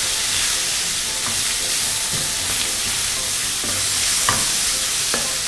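Ground pork with soy and oyster sauces sizzling in hot oil in a pan as it is stir-fried, a steady hiss with a few short knocks from the stirring.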